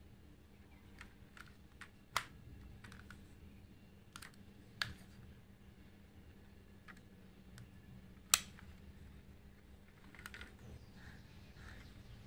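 Light clicks and snaps of a diecast Mercedes-Benz S-Class W140 model car being handled, its opening doors, bonnet and boot worked by hand. Three sharper clicks come about two, five and eight seconds in, the last the loudest.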